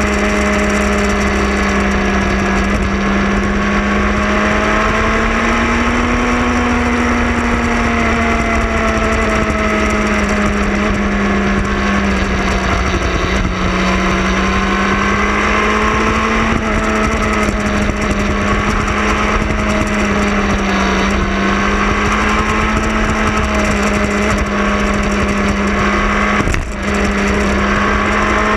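Motorcycle engine running steadily at road speed, its pitch drifting slowly up and down with the throttle, over a rush of wind. Near the end the sound drops out briefly and comes back.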